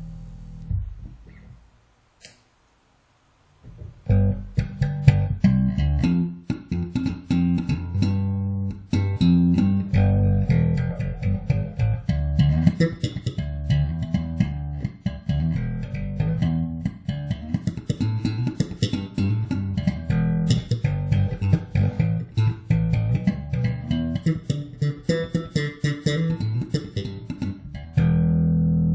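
FL Custom five-string electric bass with Aero Custom H-series pickups, played solo. After a note dies away and a short pause with one click, it plays a busy line of quick, sharply attacked notes, then ends on a single held note left ringing.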